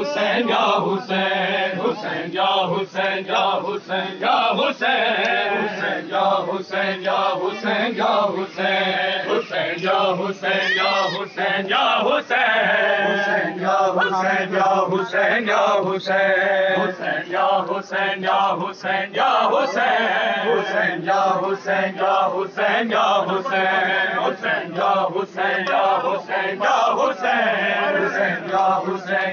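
A crowd of men chanting a noha (a Muharram lament) together, with regular chest-beating slaps (matam) keeping the beat.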